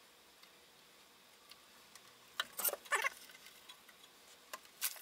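Faint room tone, then a few light clicks and rustles from hands and tools working inside an open metal amplifier chassis, about halfway through and again near the end.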